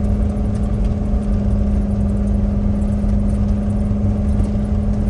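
Car driving at a steady pace: continuous engine and road noise, a low rumble under a steady hum.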